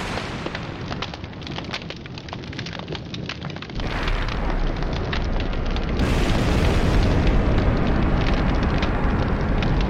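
Fire and explosion sound effects. Dense crackling and popping, then about four seconds in a deep rumbling blast sets in and swells, loudest in the second half.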